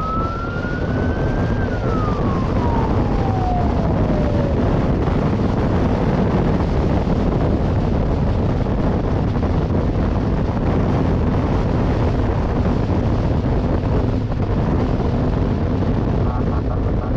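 A police escort motorcycle's siren gives one last wail, rising and then winding down over the first few seconds until it stops. Heavy wind rush on the microphone from riding at speed carries on throughout.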